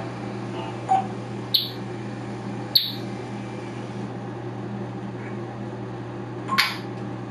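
African grey parrot giving a few short, sharp chirps and clicks: a brief note about a second in, two quick high chirps, then a slightly longer one near the end, over a steady low hum.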